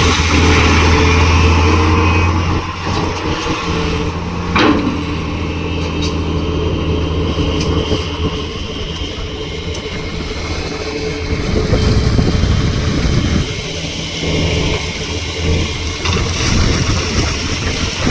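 Heavy diesel engine of an excavator working under load, steady and loud, easing off after about two and a half seconds and rising again later. A single sharp clank comes about four and a half seconds in.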